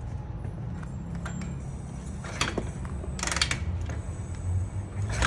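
Kick-starter of a Harley-Davidson 45 flathead V-twin being kicked through with the throttle held open: priming kicks, with the mechanism clicking and clacking a few times while the engine does not fire.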